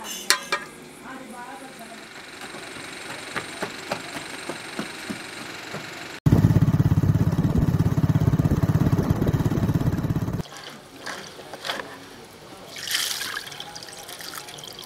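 Light clicks and clatter, then after an abrupt cut an engine running loudly with a rapid low pulse for about four seconds. Scattered clicks and a short hiss follow near the end.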